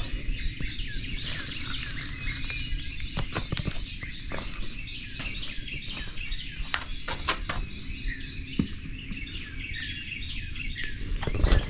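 Many wild birds singing and chirping together in a dense dawn chorus. Underneath there is a steady low rumble and a few sharp clicks and knocks.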